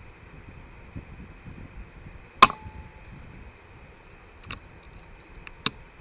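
A single shot from a Daystate Red Wolf .22 HP pre-charged pneumatic air rifle, a sharp crack with a brief ring after it, about two and a half seconds in. A few much fainter sharp clicks follow about two and three seconds later.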